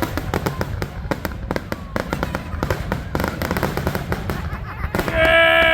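Fireworks display: a dense run of rapid bangs and crackles. Near the end a loud held whistle-like tone joins in.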